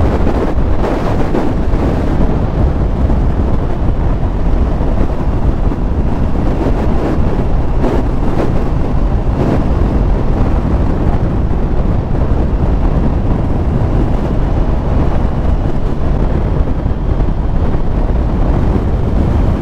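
Steady, heavy wind rumble on the microphone of a Honda CBR650R motorcycle being ridden at road speed, with vehicle noise mixed in underneath.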